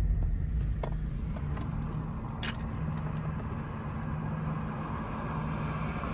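Volkswagen Touareg driving, heard from inside the cabin: a steady low engine hum and road rumble, with one light click about two and a half seconds in.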